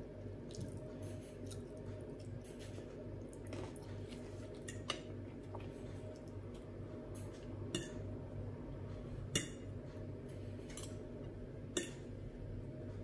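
Metal fork scraping and clinking against a glass dinner plate as food is scooped up, with about four sharp clinks spread through, over a steady low hum.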